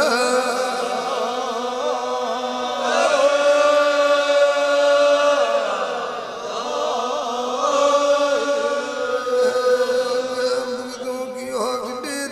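Devotional chanting of Dev Narayan's name: a voice singing long, wavering held notes without a break.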